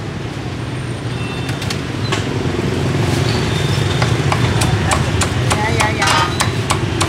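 Busy street-stall ambience: a steady traffic hum with voices in the background, and a run of sharp knocks and clacks that starts about a second and a half in and grows denser in the second half.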